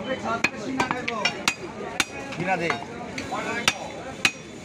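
A butcher's knife chopping beef on a wooden block: a series of sharp, irregular knocks as the blade strikes the wood, with indistinct voices in the background.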